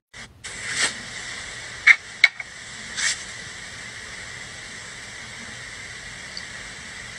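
Steady hiss of a phone recording, with two sharp clicks about two seconds in and two soft breathy swells, one near the start and one about three seconds in.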